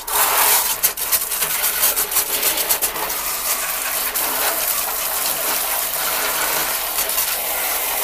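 Water spraying from a handheld shower head onto the plastic dust container and filter parts of a Bosch Runn vacuum cleaner in a plastic basin. It is a steady splashing hiss, with sharp pattering of drops on the plastic during the first few seconds, as the parts are rinsed clean of dust.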